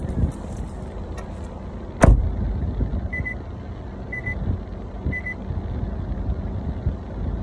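Car door slamming shut about two seconds in, followed by the car's warning chime beeping three times, about a second apart. A low engine rumble runs underneath from the car idling.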